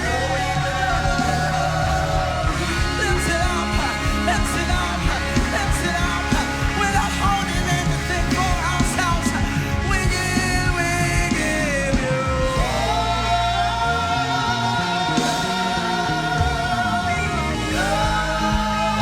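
Live gospel praise-and-worship music: a band with bass and drums under a group of singers. About two-thirds of the way through, the singers settle into long held notes together.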